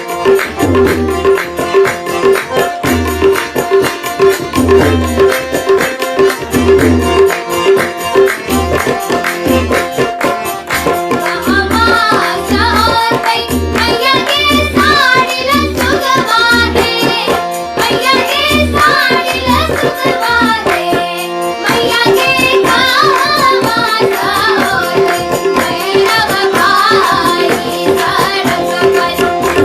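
A Maithili jhijhiya folk song: music with tabla keeping a steady pattern of deep bass strokes, and singing that comes in about a third of the way through. The music breaks off briefly about two-thirds of the way through, then goes on.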